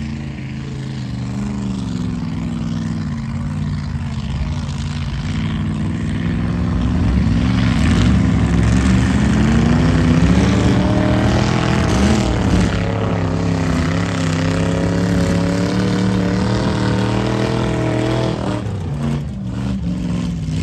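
A mud-race vehicle's engine running hard at high revs. Its pitch climbs about a third of the way in, wavers up and down as the throttle works, and falls away abruptly near the end.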